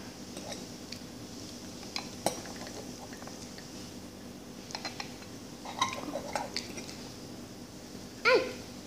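Metal forks clinking and scraping against a bowl as noodles are twirled and lifted: a handful of scattered light clinks, with a short voiced sound from one of the eaters near the end.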